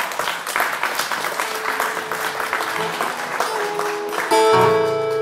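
Audience applause, many hands clapping. About four seconds in, a loud guitar chord rings out and holds.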